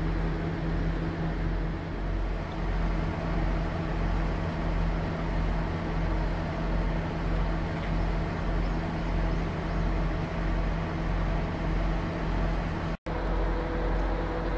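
Idling diesel engine of a KiHa 47 railcar standing at a platform, a steady hum with a regular low throb. The sound drops out for an instant near the end.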